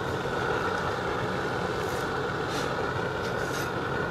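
Propane roofing torch burning steadily as it heats rubber-modified torch-down roofing to bleed in and seal the membrane.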